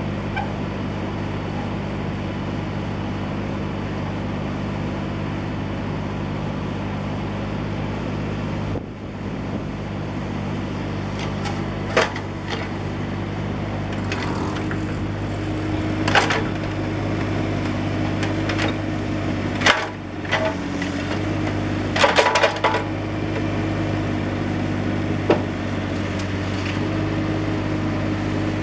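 Diesel engine of a 2007 Bobcat 328G compact excavator running steadily, with a brief dip about a third of the way in. From the middle on come a number of sharp metallic clanks and knocks.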